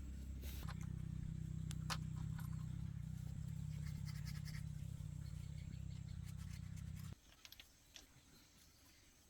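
A low, steady machine hum that cuts off abruptly about seven seconds in, with light scratching and clicking over it.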